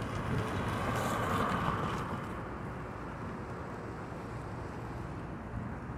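Steady low rumble of a parked car's engine idling.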